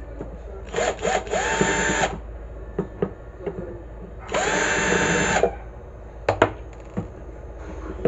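Cordless drill-driver unscrewing the screws from an electric kettle's base: two bursts of motor whine about a second long each, the first after a couple of short trigger blips. A few sharp clicks follow the second burst.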